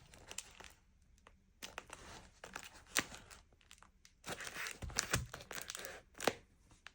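Beeswax food wrap being handled and pressed into shape, crinkling in irregular spells with brief pauses and a couple of sharper crackles.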